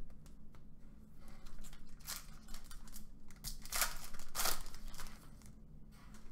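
Clear plastic wrapper of a trading card pack being torn open and crinkled by hand, with the loudest rips about two seconds in and twice around four seconds in.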